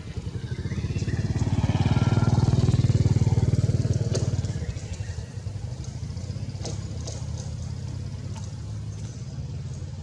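A motor engine running, growing louder about a second in, at its loudest for a couple of seconds, then dying down by about five seconds and carrying on faintly, with a few light clicks later on.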